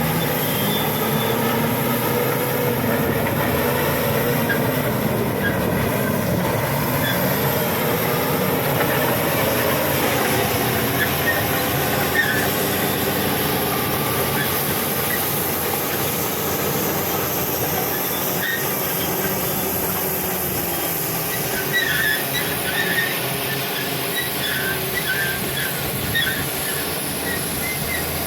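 Shantui SD16E crawler bulldozer's diesel engine running under load, its pitch wavering in the first half, while the steel tracks squeal, with short high squeaks coming thick in the last several seconds.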